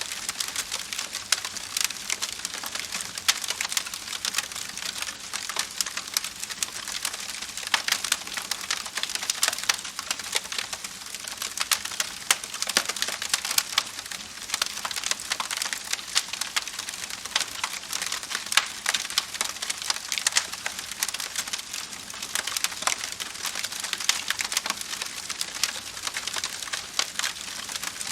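Campfire burning wood, crackling steadily with dense small pops and snaps over a soft hiss.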